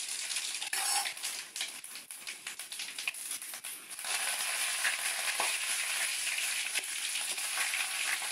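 Hot oil in an aluminium kadai on a gas stove sizzling and crackling as ingredients are dropped in. About four seconds in, the frying becomes a denser, steady, louder sizzle.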